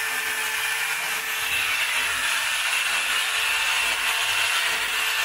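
Cordless drill running steadily while boring into a wall.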